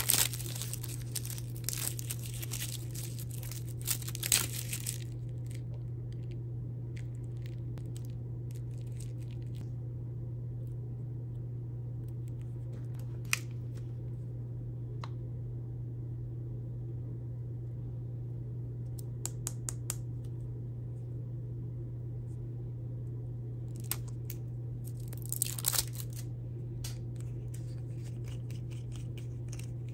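Plastic lollipop wrapper crinkling and tearing as a Blow Pop is unwrapped during the first few seconds. Then come scattered light clicks and rustles of plastic candy packaging being handled, with another short crinkle burst near the end, over a steady low hum.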